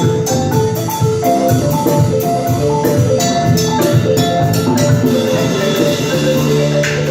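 West African ensemble music: fast runs of short notes on a balafon (wooden xylophone) over hand-drum strokes and low sustained bass notes.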